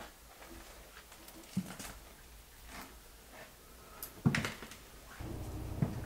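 Scattered footsteps and small knocks of someone walking through an empty room, the loudest about four seconds in. A low rumble comes in near the end.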